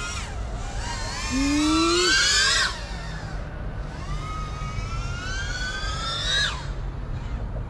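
FPV quadcopter's motors and propellers whining, the pitch rising and falling with the throttle: a climb to a peak that cuts off abruptly about two and a half seconds in, then a second rising whine that peaks and drops away near the end.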